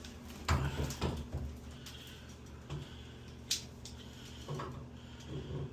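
Light knocks and handling clunks from a shower head being adjusted on its arm, with one sharp click about three and a half seconds in.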